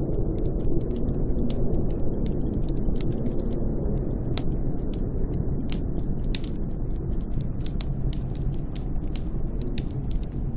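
Snowstorm wind rumbling steadily, with many sharp, irregular crackles throughout.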